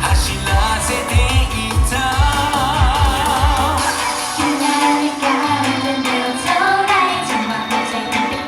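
Thai pop song with a female lead vocal, with a steady kick-drum beat that drops out about four seconds in, leaving the voice over lighter backing before the bass comes back near the end.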